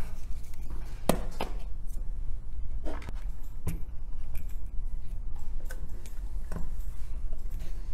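A blue logic-board heating platform is handled and set down on a microscope base, giving a handful of light knocks and clicks. A steady low hum runs underneath.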